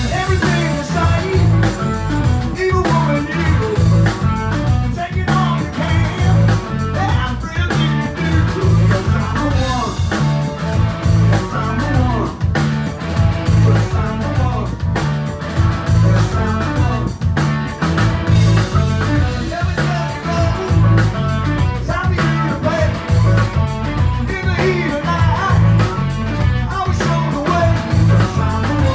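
Prog-rock band playing live: electric guitar, bass, drums and organ over a steady, driving beat.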